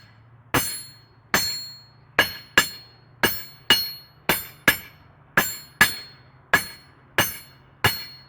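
Hammer striking the face of a heat-treated railroad-rail anvil: about a dozen sharp metallic blows, one or two a second, each ringing briefly. The hardened rail takes the blows far better than before, though it still marks a little.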